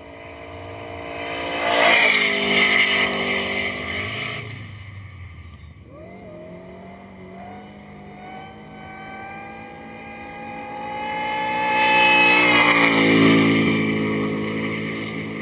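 Burnout car's engine held at high revs during a power skid, getting loud twice as it swings close past, with the revs dropping and climbing back up about six seconds in.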